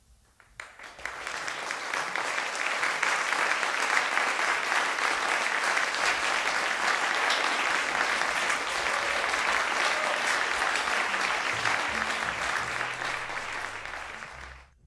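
Concert audience applauding, the clapping swelling over the first couple of seconds, holding steady, then fading out near the end.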